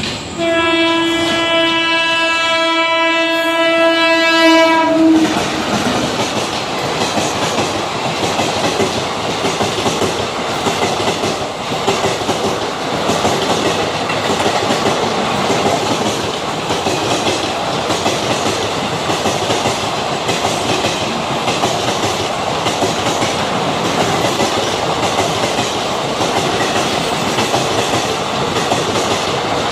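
WAP-4 electric locomotive's horn sounds one steady note for about four and a half seconds as the train comes through. Then the passenger train runs past with a continuous rumble and the clickety-clack of its wheels over the rail joints.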